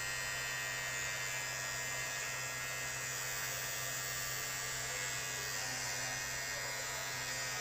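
Philips BT1212 battery beard trimmer running with a steady electric buzz as it cuts beard hair.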